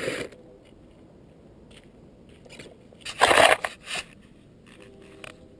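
RC buggy hitting the dirt right at the camera: one loud crunching impact about three seconds in and a smaller one just after, with faint scattered clicks of gravel before them.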